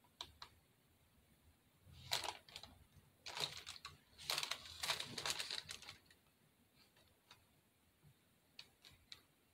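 Faint scraping and rustling of handling as a wired toy bunny foot is pushed into the side of a fake cake, in a few short scrapes about two, three and five seconds in.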